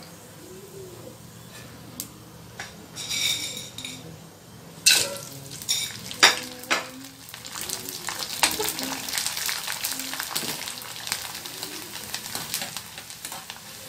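Murukku strips deep-frying in hot oil in a kadhai, sizzling, with sharp clinks of metal utensils against the pan about five to seven seconds in. The sizzle grows fuller after that as a fresh batch fries and is stirred.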